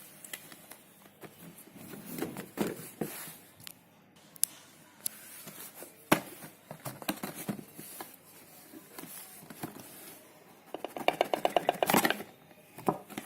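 Packaging of a Chromecast being handled and opened: scattered clicks, taps and rustles, with a quick rattling run of many clicks near the end.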